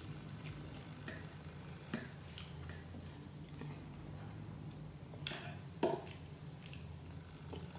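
Quiet eating sounds: chopsticks clicking as they pick through a sauce-covered hamburg steak, with soft chewing, and two louder taps a little past halfway. A steady low hum runs underneath.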